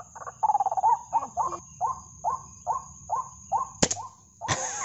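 White-breasted waterhen calls repeating about twice a second, with insects trilling steadily behind. A single sharp crack of an air-rifle shot comes near the end.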